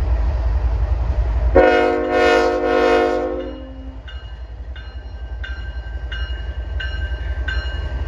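CN ES44AC diesel locomotive's air horn sounding one multi-note blast of about two seconds, a second and a half in, over the low rumble of the approaching freight train. After it a bell rings steadily, a little under two strikes a second.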